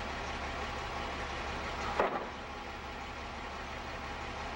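Flatbed truck's engine idling steadily, with a brief sharp sound about two seconds in.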